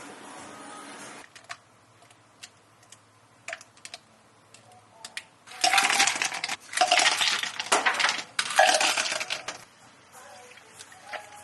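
Hard, clinking rattles from café drink preparation: a few small clicks, then three loud bursts of rattling, each about a second long, in the middle.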